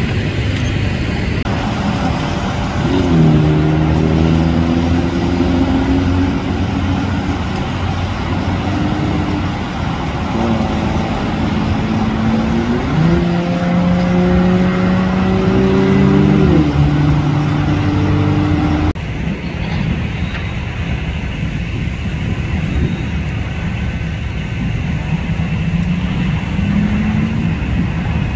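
Fire engine's diesel engine running, twice speeding up and holding at a higher steady pitch. About two-thirds through, the sound changes abruptly to a steadier, slightly quieter rumble.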